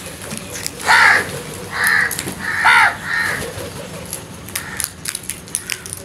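House crows cawing: four harsh caws, the first about a second in, then one near two seconds and two close together near three seconds.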